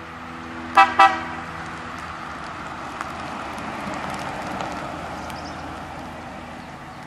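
1950 Buick Roadmaster's horn giving two quick toots about a second in, then the car with its Fireball straight-eight driving past, its sound swelling and then fading away.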